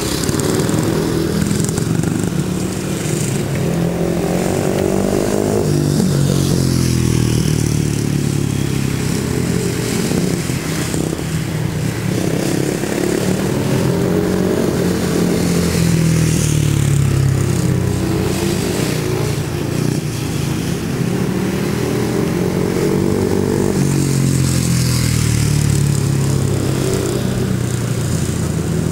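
Speedway bike's single-cylinder engine running laps on a shale track, its pitch climbing and falling in a repeating cycle every six to eight seconds as the rider opens and shuts the throttle.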